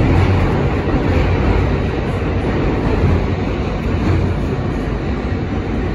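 R160 subway car running at speed through a tunnel, heard from inside the car: a steady, loud noise of wheels on rails, heaviest in the low end.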